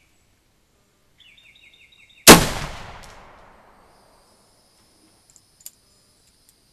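A single shot from a brass-framed CVA "Confederate" .44 percussion revolver firing a black-powder load with a round ball. It comes about two seconds in as one sharp crack that rings away over about a second and a half. The recoil knocks the revolver's loading lever down, and a light metallic click follows near the end.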